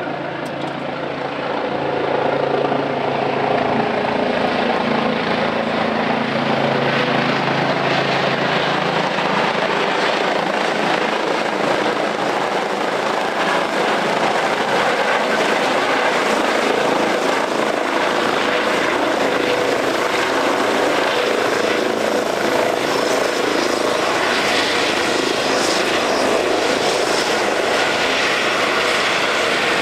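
Medical helicopter's rotor and engine noise as it comes in and lands. The noise swells over the first couple of seconds, then holds steady and loud.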